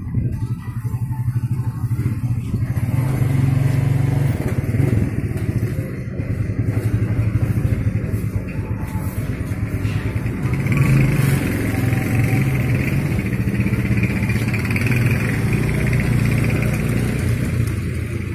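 Motorcycle engine running close by, steady and low, getting louder about three seconds in.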